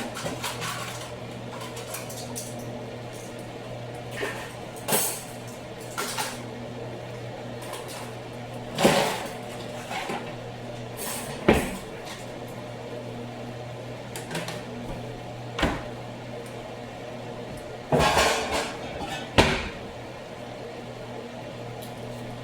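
Scattered clinks and knocks of pots, utensils and dishes being handled at a kitchen counter, a dozen or so separate sharp sounds with a quick cluster near the end, over a steady low hum.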